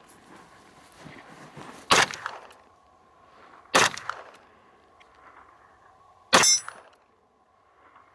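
Three pistol shots from a Zev-upgraded Glock, fired slowly: about two seconds in, nearly two seconds later, and again about two and a half seconds after that.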